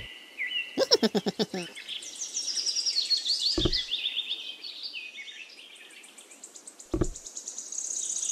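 Songbirds chirping and trilling in quick, high calls. About a second in there is a quick run of clicks, and two short dull thumps come later.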